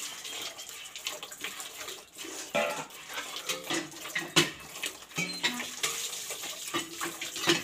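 Hand-milking a cow: squirts of milk from the teats splash in quick irregular strokes into a plastic bucket.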